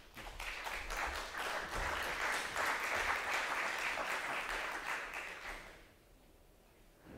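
Audience applauding in a hall: many hands clapping, swelling quickly, holding for about five seconds, then dying away near the end.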